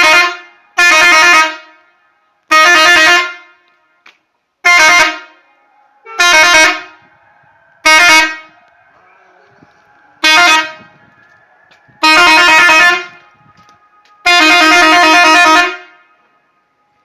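Mercedes truck air horn fitted to an Erkunt 90 Lüks tractor, sounded in a series of about nine loud blasts. Most blasts are short, and the last two are held for over a second.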